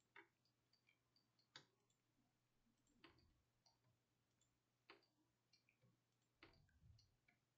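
Faint computer mouse button clicks, six of them spaced about a second and a half apart, over near silence.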